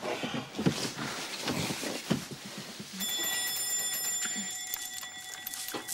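Soft rustling movement, then about three seconds in a steady electronic ringing tone starts and holds without a break.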